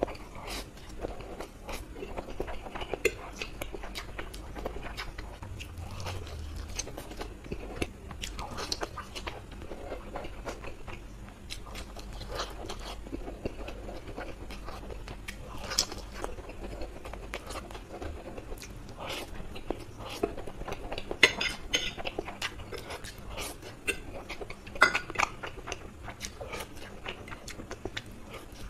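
Close-miked eating sounds: a man chewing mouthfuls of instant noodles and crisp-edged fried eggs, with wet mouth clicks throughout. A few sharp clinks of a metal fork against the ceramic plate stand out about two-thirds of the way in.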